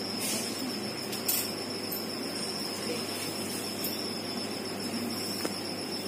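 Steady background room noise with a constant high-pitched whine and a couple of faint ticks.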